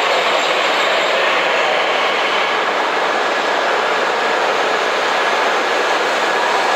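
JR Hokkaido H5 series Shinkansen train rolling past along the platform: a loud, steady rush of wheels and running gear that holds even.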